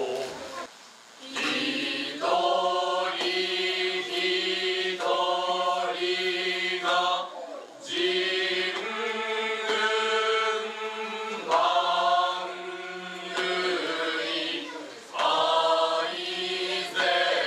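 A group of young voices, boys and girls, singing together in unison. The notes are held and the group breaks briefly between phrases; there is a short lull about a second in.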